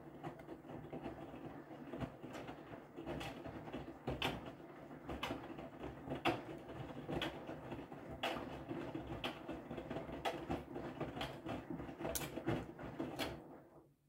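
Whirlpool FreshCare+ front-loading washing machine turning its drum, the laundry tumbling and dropping about once a second. The drum stops shortly before the end, leaving a faint low hum.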